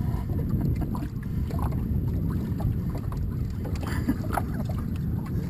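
Steady low rumble of water washing along a small boat's hull, mixed with wind on the microphone. A few faint clicks come about four seconds in.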